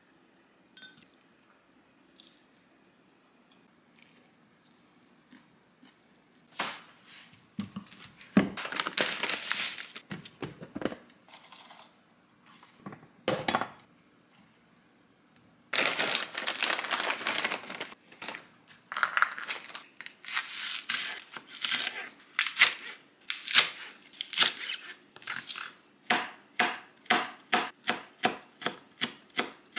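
Kitchen prep sounds: bursts of plastic packaging being crinkled and torn open, then a knife chopping on a cutting board in quick, even strokes near the end.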